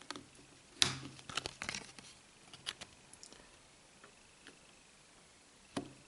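A thin plastic card being pried into the seam of a smartphone's plastic back cover: scattered sharp plastic clicks and light scrapes, the loudest about a second in, followed by a quick cluster and then sparser, fainter ticks.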